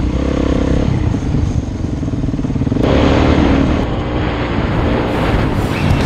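Single-cylinder four-stroke enduro motorcycle ridden at full throttle over a gravel riverbed track, its engine revving hard with the pitch shifting as the throttle changes.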